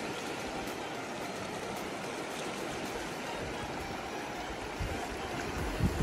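River current rushing and swirling around boulders in a fast, wide river, an even steady rush. A few low thumps come in near the end.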